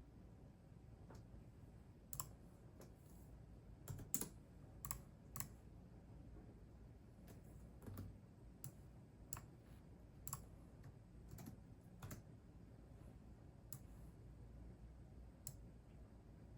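Computer keyboard keys being pressed slowly and unevenly, single sharp clicks a second or so apart with short pauses, a quick few together about four seconds in.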